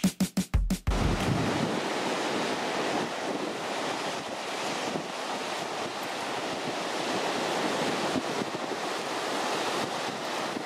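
Surf breaking on a sandy beach, a steady wash of noise, with wind buffeting the microphone. A few beats of electronic music end within the first second.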